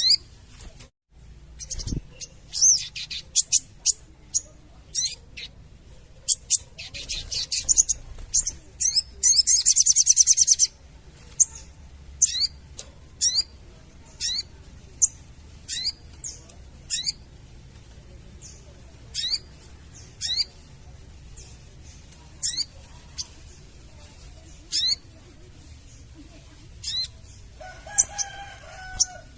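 Sogon bird chattering call: sharp high notes sweeping downward, repeated about once a second, with a dense rapid rattle about ten seconds in. A lower, rougher call comes near the end.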